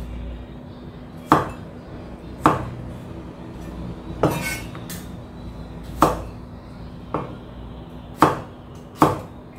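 Cleaver chopping carrots on a wooden end-grain cutting board: seven separate chops about a second apart, coming a little faster near the end.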